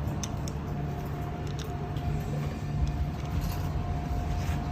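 Light metallic clicks and clinks as the seatpost clamp and its bolt are handled, over a steady low background rumble. A faint steady high tone comes in about a second in.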